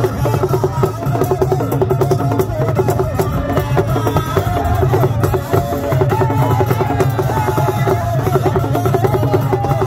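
Drums and percussion playing a steady, fast repeating rhythm, with singing voices over it.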